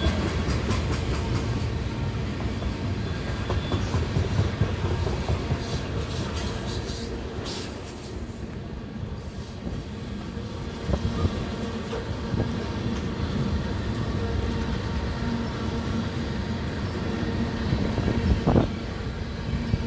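Railway tank cars of a freight train rolling past in a steady rumble, wheels clicking over the rail joints, with a sharper knock near the end.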